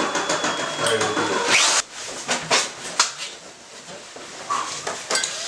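Indistinct chatter of a crowded room, then a few sharp knocks about two to three seconds in.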